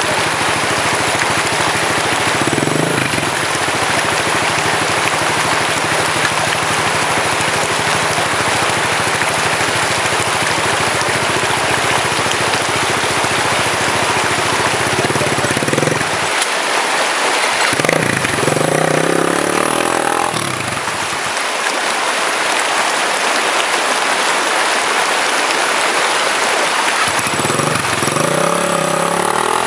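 Steady rush of stream water, with a dirt bike's engine running underneath and revving up in short bursts three times: near the start, just past halfway, and near the end.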